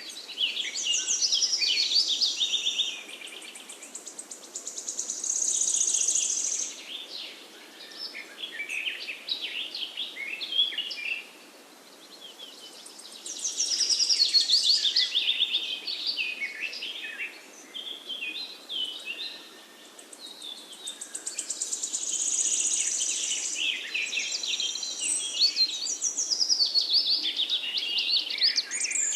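Songbirds singing: long phrases of rapid, trilling notes come every few seconds, some overlapping, over a faint steady background hiss.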